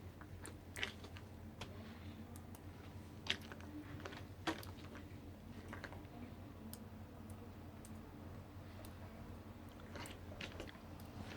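Faint chewing and crunching of ice, with a few sharp clicks over a steady low hum.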